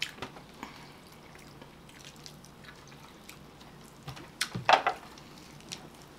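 Wet, sticky clicks and smacks from rotisserie chicken being pulled apart and eaten by hand, with a louder cluster of smacks about four and a half seconds in.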